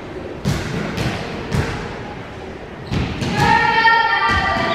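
A volleyball thumps three times on a wooden gym floor, echoing in the hall. A fourth thump comes about three seconds in, and then several voices call out together in a long, drawn-out shout.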